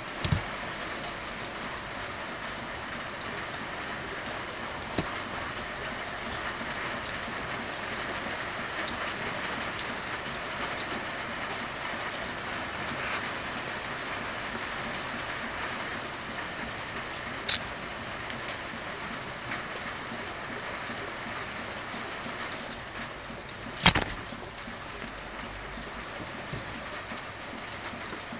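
Wooden casting mold being opened and handled: a few sharp clicks and knocks of wood, one louder knock near the end, over a steady hiss.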